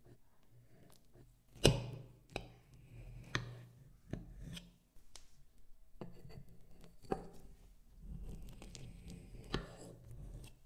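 Knife cutting through a chilled biscuit-and-cream cake in a ceramic dish: soft crunching, scraping strokes with sharp clicks and knocks of the blade on the dish, the loudest about two seconds in.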